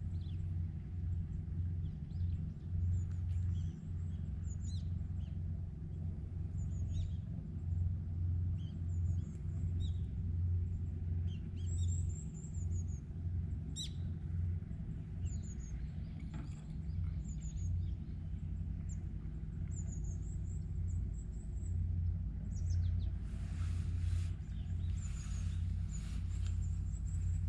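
Small birds chirping in short, repeated high calls over a steady low rumble. A few brief rustling noises come near the end.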